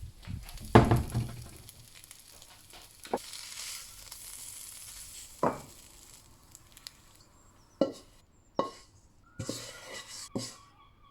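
Egg sizzling in a frying pan, with a series of sharp knocks and clatters of a utensil against the pan. The loudest knock comes about a second in.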